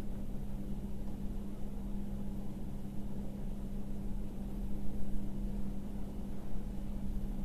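A steady low hum with a constant tone and a faint hiss underneath, unchanging throughout.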